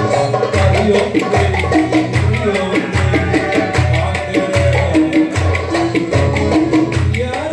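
Live Turkish folk dance music: a melody over a steady, heavy drum beat, with the dancers' wooden spoons clacking in rhythm.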